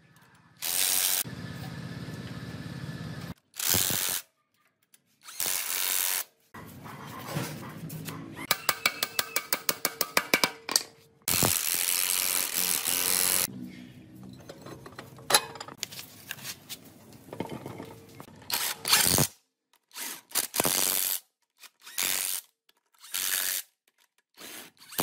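DeWalt cordless impact wrench running in repeated bursts of a second or two, tightening suspension bolts and wheel nuts. A quick series of clicks comes about a third of the way through.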